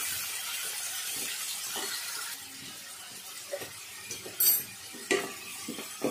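Raw chicken pieces sizzling in hot oil in an aluminium pressure cooker as they are stirred, with the spatula knocking against the pot a few times in the second half.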